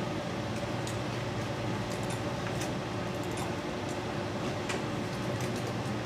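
Steady fan hum of room equipment, with a few faint clicks from a computer mouse scattered through.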